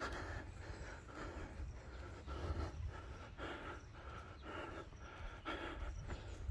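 A person breathing hard in quick, even pants, about two breaths a second, from the exertion of exercising laps. A low rumble of wind or handling on the phone microphone runs underneath.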